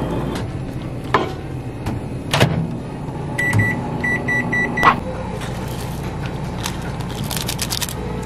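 Microwave oven keypad beeping as its buttons are pressed: a string of short high beeps about halfway through, ending in a click. Two sharp knocks come before the beeps.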